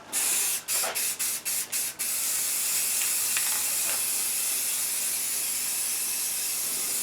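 Aerosol spray can spraying primer, hissing in half a dozen short quick bursts, then one continuous spray of about five seconds.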